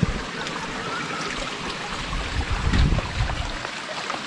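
River water running over rocks: a steady rushing, with a few low bumps about two to three seconds in.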